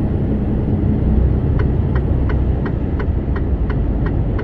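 Lorry engine and road noise inside the cab as the truck drives off. About a second and a half in, a turn signal starts ticking at about three clicks a second.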